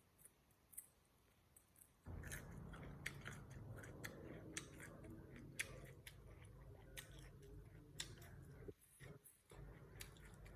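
A person chewing food close to the microphone, with crisp crunching and wet clicks, starting about two seconds in and briefly pausing near the end.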